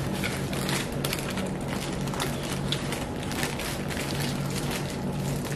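Paper taco wrapper crinkling and crackling as it is unwrapped and handled, many small crackles in quick succession, over a steady low hum.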